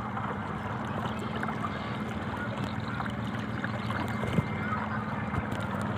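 An engine running steadily: a low, even drone that holds one pitch, with a few faint ticks over it.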